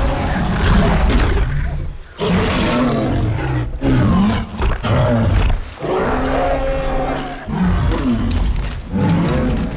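Tyrannosaurus rex roar sound effect from a film: a string of about five loud roars and growls in quick succession, each one to two seconds long with sweeping pitch.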